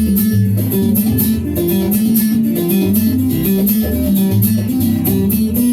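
Cuban son music: a plucked guitar part over a walking bass line, with steady, evenly spaced percussion strokes.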